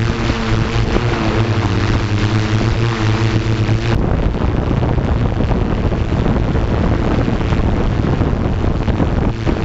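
Multirotor drone's electric motors and propellers humming at a steady pitch over a noisy rush. About four seconds in the pitched hum drops out, leaving only a rough rushing noise, and the hum returns near the end.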